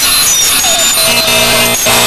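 Harsh electronic noise: a dense static hiss strewn with short beeps and little chirps. A low buzz joins about a second in, cut by one sharp click near the end. This is the sound of pulsed microwave signals rendered as audio.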